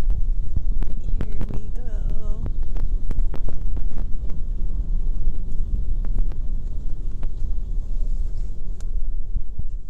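Automatic car wash heard from inside the car's cabin: a steady low rumble of the wash machinery, with water and foam spraying over the body and frequent sharp knocks against the car.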